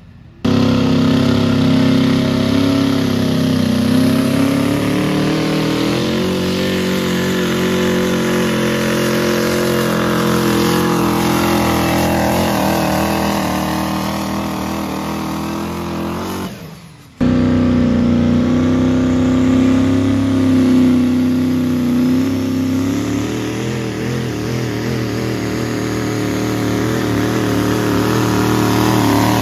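Pickup truck engines held at high revs under full load, pulling a weight-transfer sled. About 17 seconds in the sound breaks off suddenly and a second truck, a diesel, takes over, also pulling at high revs.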